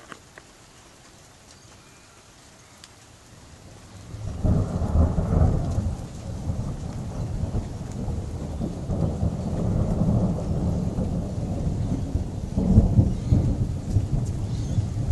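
Rolling thunder: a long, low rumble that starts about four seconds in, swells at once, and swells again near the end.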